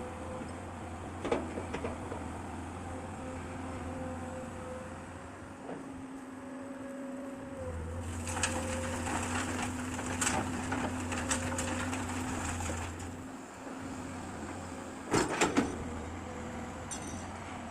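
Komatsu PC200 excavator's engine running under changing load, its hum dipping twice, with metal clanks and rattles over it: a spell of rattling in the middle and two loud knocks near the end.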